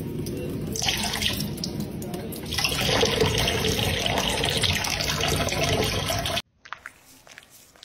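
Running water with a steady rush, like a tap, louder from about two and a half seconds in, cutting off abruptly near the end.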